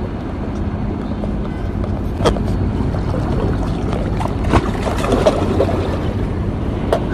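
Steady wash of wind and sea water against breakwater rocks, with a few sharp clicks.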